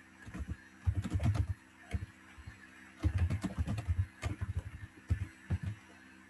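Typing on a computer keyboard: quick runs of keystrokes with short pauses between them.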